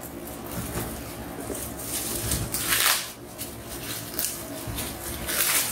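Rustling and crinkling of the plastic-wrapped firework box and carton packaging as it is handled, louder twice: about two and a half seconds in and near the end.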